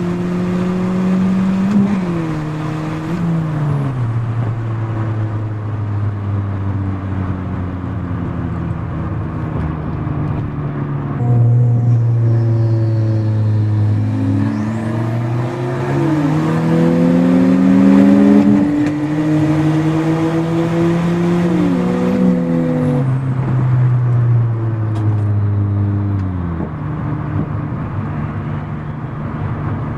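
Turbocharged 1989 Ford Probe GT four-cylinder engine heard from inside the cabin, revving up and dropping at each gear change. It shifts twice early on, cruises steadily, then pulls hard again from about a third of the way in with several more upshifts before easing off near the end.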